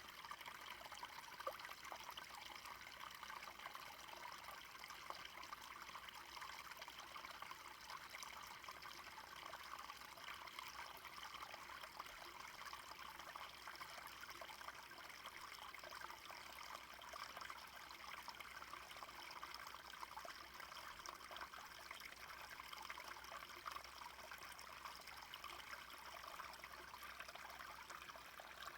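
A small stream flowing and trickling steadily, quietly.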